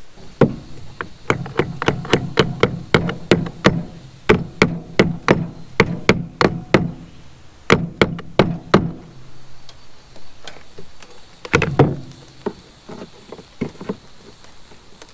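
Rapid hammer blows, about three a second for roughly eight seconds, then a short pause and a handful more strikes near the end.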